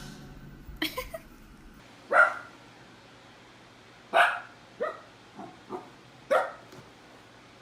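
A dog barking: three loud single barks about two seconds apart, with a few quieter, shorter barks in between.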